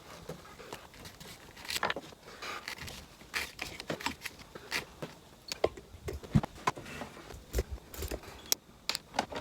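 Irregular clicks, taps and light knocks of small hard objects being handled and set down, with brief scraping and rustling between them.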